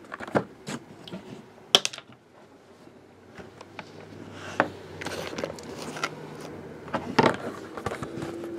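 Shrink-wrapped cardboard trading-card boxes being handled. A few sharp knocks come as boxes are moved and set down, the loudest a couple of seconds in. From about halfway there is a rustling of cardboard and plastic wrap, with occasional clicks.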